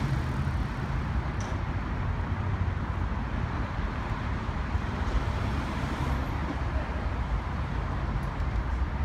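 Steady low rumble of city street traffic and running vehicle engines.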